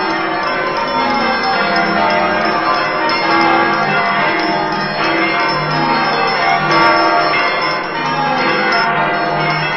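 Many bells ringing at once in a loud, dense peal that cuts in suddenly at the start and runs on without a break.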